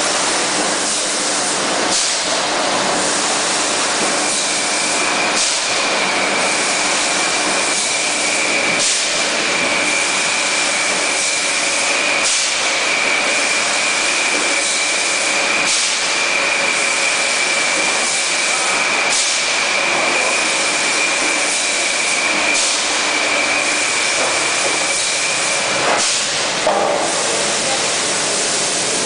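PET bottle filling-line machinery running: a steady hiss and spray, with a short surge of hiss about every three and a half seconds and a steady high whine through most of it.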